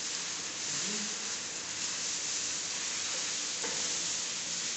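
Steady, even hiss from a running heat-transfer laminating machine.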